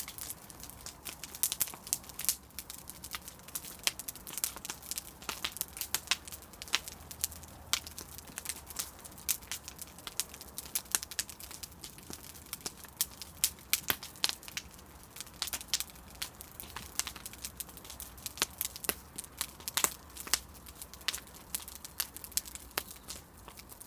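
Bonfire of scrap wood and old shed timber crackling, with many sharp, irregular snaps and pops.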